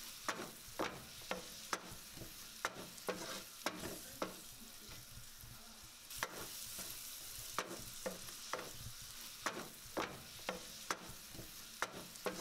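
Minced meat with onion and tomato paste sizzling in a frying pan, stirred with a wooden spatula that scrapes and knocks against the pan about once or twice a second.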